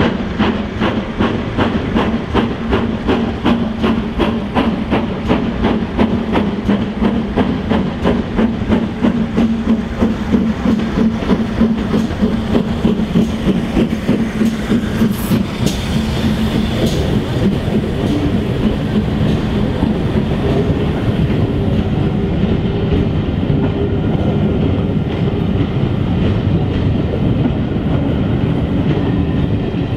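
Castle-class steam locomotive 7029 'Clun Castle' working hard, its exhaust beating sharply and evenly. About halfway through it passes close by, and the sound turns to the steady rumble and clatter of its passenger coaches rolling past over the rail joints.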